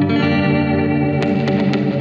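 Background music: sustained chords with sharp percussive hits.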